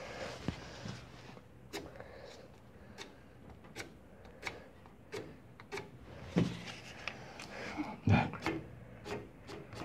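A match-head firecracker struck over and over against the striking strip of its box: a dozen or so short, sharp scratches a little under a second apart. It fails to catch.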